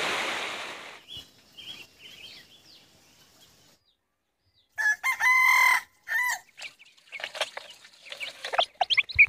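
Rushing water fades out in the first second, then after a quiet spell a rooster crows once, loudly, about five seconds in, followed by a hen clucking and chicks peeping.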